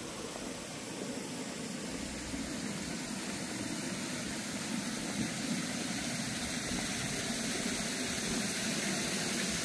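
Steady outdoor street background: an even rumble and hiss with no distinct events, growing slightly louder toward the end.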